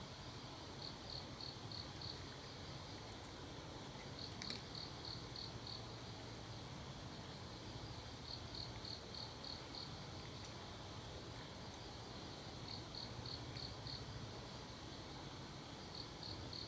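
A cricket chirping in short runs of five or six chirps, about four a second, with a run every four seconds or so, over a faint steady low hum.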